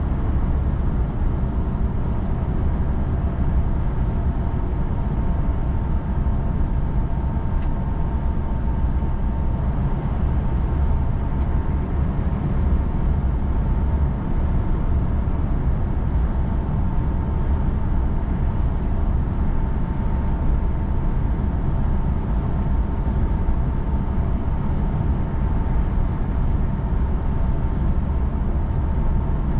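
Car driving on a rainy road: a steady low rumble of road and engine noise, with a faint steady high whine running through it.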